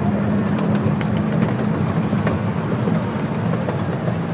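Ride-on miniature railway train running along its track: a steady low rumble with a few sharp clicks from the wheels and rails.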